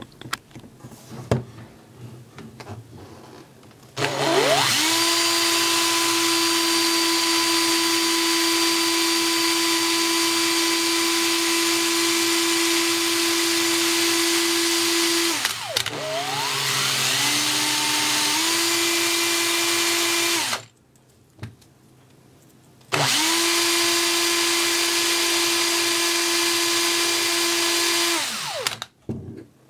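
Electric drill spinning a small brush bit inside a LEGO pneumatic switch body to scrub out plastic residue. The drill runs three times with a steady whine, the first run the longest; the motor winds up in pitch at each start and stops between runs. A few light handling knocks come before the first run.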